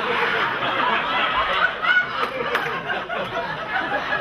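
Audience laughing: many voices chuckling and laughing together at once.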